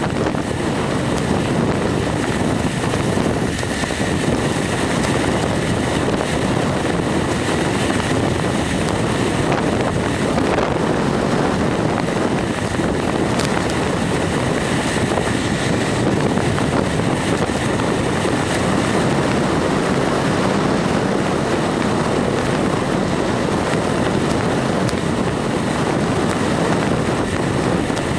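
Steady wind rushing over the microphone of a camera moving along a road at speed, an even roar with no distinct events.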